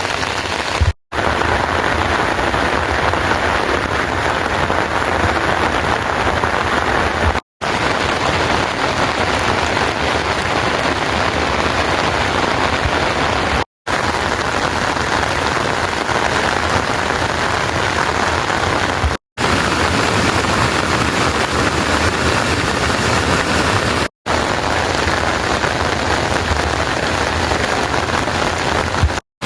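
Steady rain falling, an even hiss, broken by brief silent gaps every few seconds.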